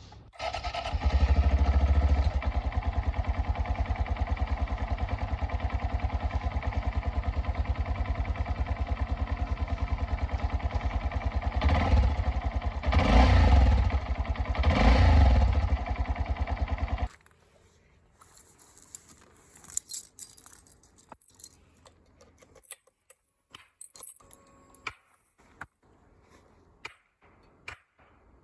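Honda Monkey 125 single-cylinder engine idling through a BEAMS R-EVO aftermarket silencer, with a steady even exhaust pulse. It is revved briefly two or three times and then switched off, stopping suddenly. A few light clicks and rattles follow in the quiet.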